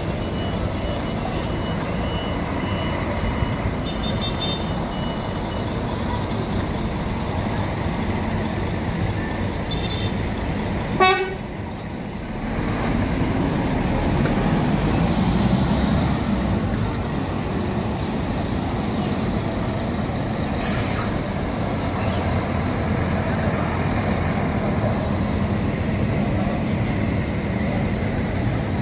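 Intercity buses running with a steady engine drone, one short loud horn toot about a third of the way in, and a brief hiss a little after two-thirds of the way through.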